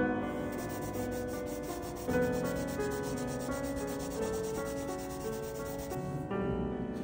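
Charcoal rubbing and scratching on paper, a steady run of fine strokes, heard over background music with held notes that change every second or so.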